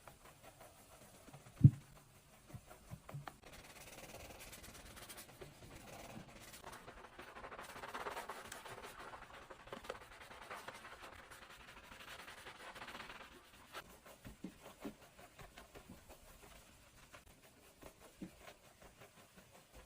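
Cleaning sounds: a single sharp knock, then about ten seconds of steady rough scrubbing against a surface, then scattered light taps.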